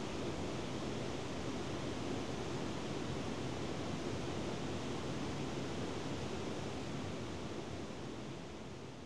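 Steady rushing of flowing river water, an even hiss without distinct splashes, that begins to fade out near the end.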